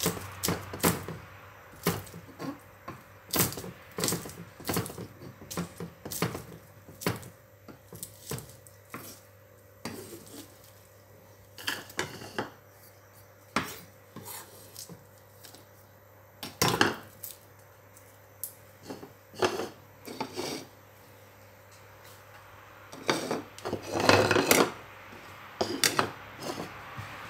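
Kitchen knife slicing chillies and garlic on a round wooden chopping board: irregular sharp knocks of the blade against the wood, closer together at first, then sparser, with a louder flurry of knocks near the end.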